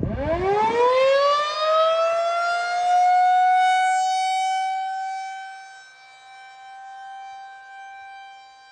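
Federal Signal 2001 rotating electromechanical tornado siren starting up for a scheduled test. It winds up from a low growl to a steady high wail over about three seconds, then holds its pitch and grows fainter after about five seconds.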